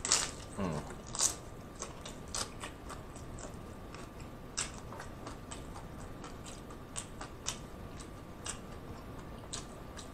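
A crisp hard-shell beef taco being bitten and chewed close to the microphone: irregular sharp crunches, packed close together in the first seconds after the bite and then more spaced out.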